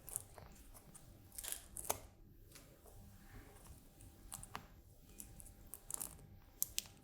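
Protective backing paper being peeled off self-adhesive hook-and-loop tape pieces: faint crinkling and small ticks and crackles, in brief clusters.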